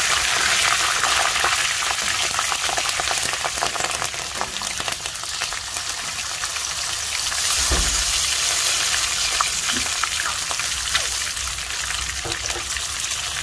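Slit green chillies sizzling and spattering in hot oil with dried red chillies and mustard and cumin seeds: a dense, steady crackle of fine pops, loudest at the start and easing slightly. A single dull thump about eight seconds in.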